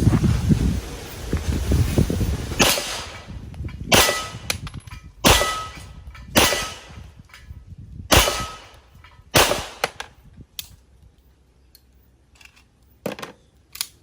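Rock Island Armory TAC Ultra 9mm pistol fired six times at a slow, even pace, about one to two seconds between shots, each shot trailing off briefly. A few fainter shots follow near the end.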